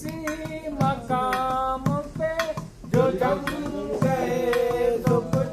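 A voice singing a slow melody with long held, wavering notes over regular percussion beats.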